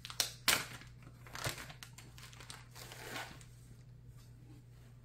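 A clear plastic bag crinkling as a piece of stiff Aida cross-stitch fabric is slid out of it, in a few short rustling bursts, the loudest right at the start, dying away after about three seconds.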